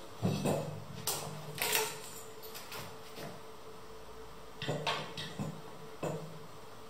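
Metal tubes of a rocking-chair frame clacking and knocking against each other as their overlapping joint plates are pulled apart, then fitted back together. A few sharp knocks come in the first two seconds and another cluster comes near the end.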